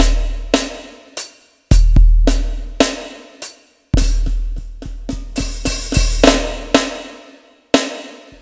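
Drum solo: deep kick-drum hits that ring on and fade, with snare strokes and cymbal crashes, played in short phrases broken by brief silences. A quicker run of hits comes past the middle.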